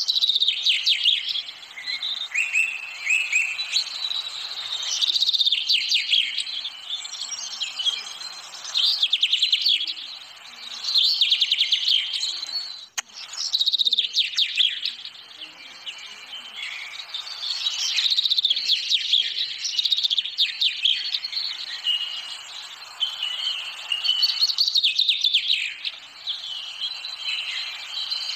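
Songbirds chirping and trilling in quick, repeated bursts.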